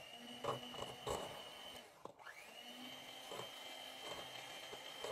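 Electric hand mixer running with its wire beaters in a bowl of margarine and milk: a steady high motor whine with a few knocks in the first second or so. The motor cuts out briefly about two seconds in, then starts again, its pitch rising as it comes back up to speed.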